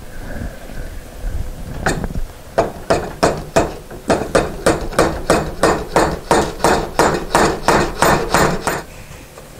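Claw hammer tapping wooden wedges up into the slot at the handrail-to-newel-post joint, knocking it up to close the joint. One blow, then a steady run of about three blows a second that stops near the end.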